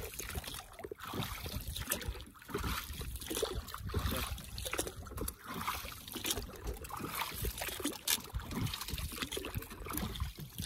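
A knife scraping over a tilapia as it is cleaned, in short irregular scrapes, with water lapping against a small wooden boat.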